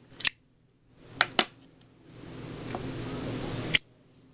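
Sharp metallic clicks and taps of Zippo lighters being handled, five in all, two of them close together, over a soft hiss that swells and cuts off near the end.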